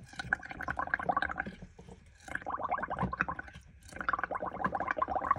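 Bubbling gurgle of a child blowing through a plastic straw into a tub of ink-tinted bubble mixture. It comes in three long blows of about a second and a half each, with short breaks between.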